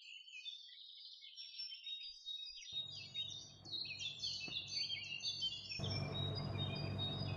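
Small birds chirping and twittering in quick, overlapping calls. A low, steady background hum comes in beneath them about three seconds in and grows louder near six seconds.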